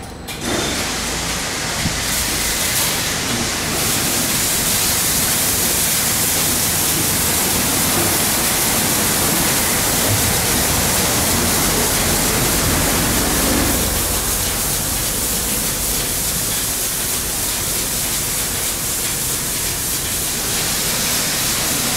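Ceccato Hydrus Tech gantry car wash spraying water over a van: a loud, steady hiss of spray jets that starts about half a second in.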